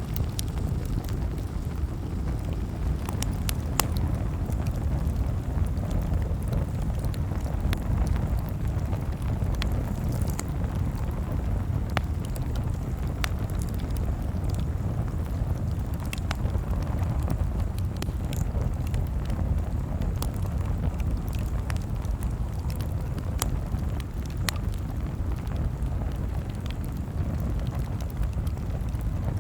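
Bonfire burning: a steady low rumble of flames with scattered sharp pops and crackles from the burning wood.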